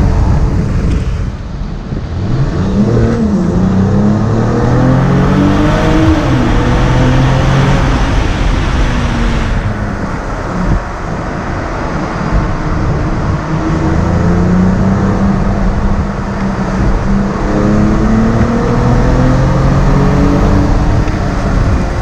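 Mercedes-AMG GLE 53's 3.0-litre inline-six engine and exhaust running hard in a tunnel. The engine note rises and falls several times as the driver accelerates and lifts off, over steady tyre and road noise.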